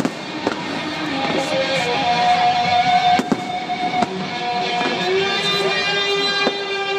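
Music playing with fireworks going off over it: sharp bangs about half a second, three, four, five and six and a half seconds in.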